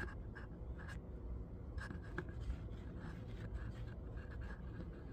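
Soft rustling and scratching of cotton waffle-weave towels being handled, in short scrapes scattered throughout, over a low steady hum.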